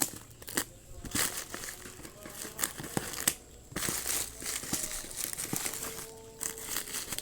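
Plastic packaging being crinkled and torn in irregular rustling bursts while a parcel is unwrapped.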